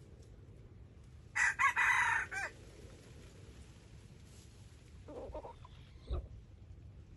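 Red junglefowl rooster crowing once, a short crow of about a second, starting about a second and a half in. A fainter, lower call follows a few seconds later.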